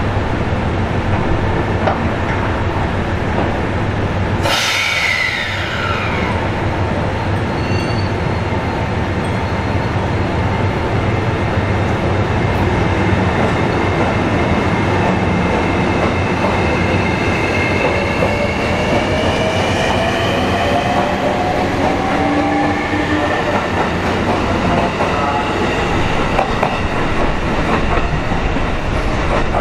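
JR East E653 series limited-express electric train pulling out of the platform and running past, with steady wheel and rail noise. Partway through, its motor whine rises in pitch as it accelerates away.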